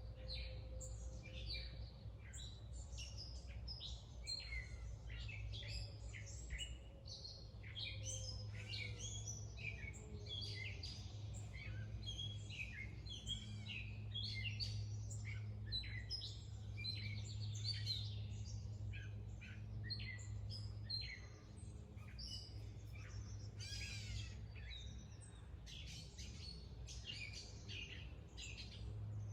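Wild songbirds chirping and singing in a busy chorus of short, quick calls, over a low steady hum.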